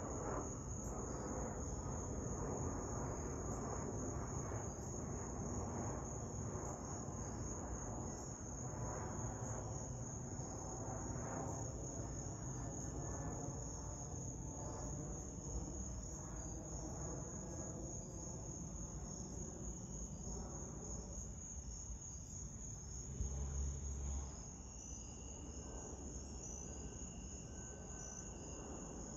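Jet airliner passing overhead, its engine rumble with a faint, slowly falling whine gradually fading. A steady high chorus of chirping insects runs underneath, and there is a brief low thump about 23 seconds in.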